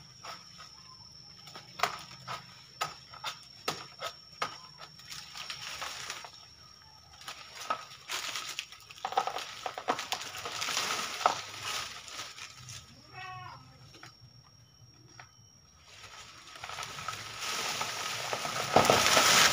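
A banana plant being cut down by hand: sharp knocks on the stem about two a second for the first few seconds, then rustling and tearing of the dry, papery banana leaves, which grows louder near the end as the plant starts to give way.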